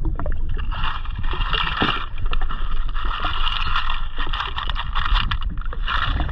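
Bay scallop shells clicking and clattering as they are shaken out of a mesh dive bag into a plastic bucket, over a steady rumble of wind on the microphone and water around the jet ski.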